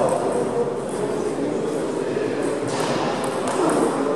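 Table tennis hall din: a steady murmur of voices with the light clicks of celluloid balls on bats and tables, a rally getting under way near the end.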